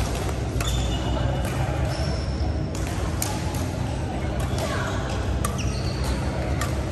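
Badminton rally: sharp racket strikes on the shuttlecock every second or so, with short high squeaks of shoes on the court mat, over a steady low hum.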